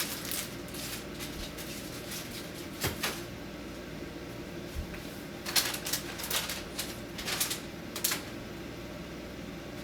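Food packages and containers being handled and set down on refrigerator shelves: light clicks and knocks in small clusters near the start and about three seconds in, then a busier run of them around six to eight seconds in, over a steady low hum.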